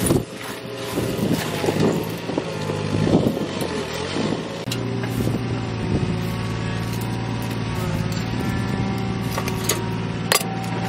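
Gloved hands crunching and clattering through ash, broken glass and burnt debris against rusted metal, mostly in the first four seconds, with a sharp click near the end. A steady engine-like hum runs underneath throughout.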